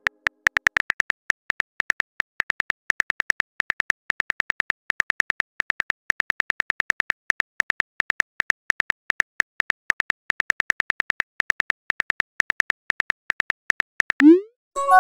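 On-screen phone keyboard key-click sound effects, rapid and irregular, as a text message is typed letter by letter. Near the end comes a short rising whoosh as the message is sent.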